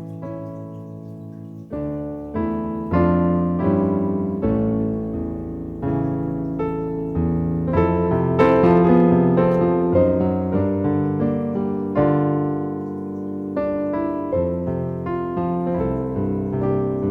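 Background piano music: a slow piece of struck chords and melody notes, each ringing and fading before the next.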